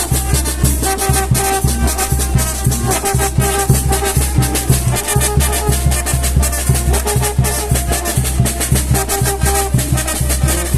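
A Mexican brass banda playing an instrumental tune: brass melody over a steady oom-pah beat of tuba and drums.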